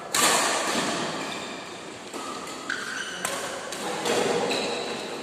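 Badminton rackets striking a shuttlecock during a doubles rally: several sharp hits, each fading away with echo in a large indoor hall.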